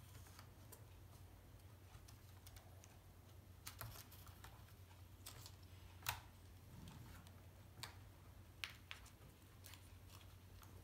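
Faint, scattered plastic clicks and taps as a laptop keyboard and its ribbon cable are handled and fitted into the laptop, the sharpest click about six seconds in, over a low steady hum.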